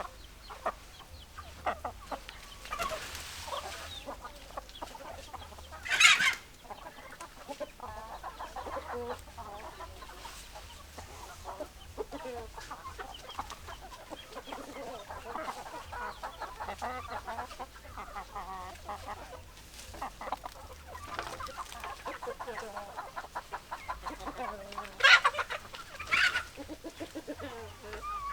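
Chickens clucking throughout, many short calls overlapping. Two louder, sharper calls stand out, one about six seconds in and another pair near the end.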